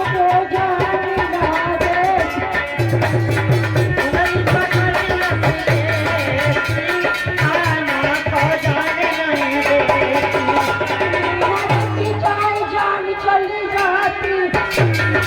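Indian devotional folk music: a hand drum plays a steady, quick beat under a wavering melody line.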